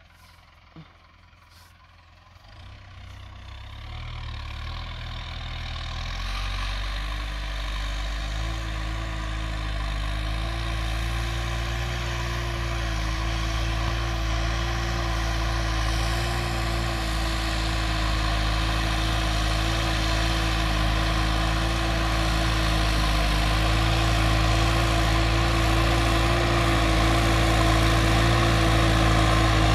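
New Holland TT4.75 tractor's diesel engine running steadily under load while ploughing. It grows louder from about two seconds in as the tractor comes closer.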